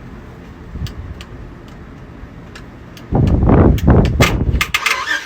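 Truck starter cranking the engine in a loud, rough burst from about three seconds in, after a few faint clicks; the engine catches right at the end. It is the starter finally engaging after the key is worked, on a truck with an intermittent no-crank fault.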